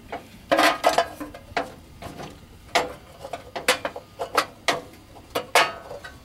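Plastic engine cover being pushed back into place on a Briggs & Stratton 12 HP engine: a run of irregular sharp clicks and knocks of hard plastic against the engine, some with a brief ring.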